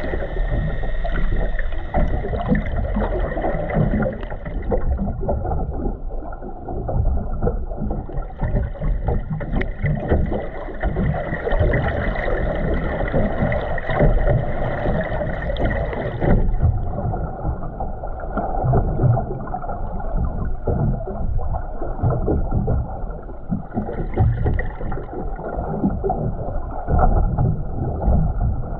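Muffled underwater rumble and gurgle of water heard through a submerged camera, with no distinct events.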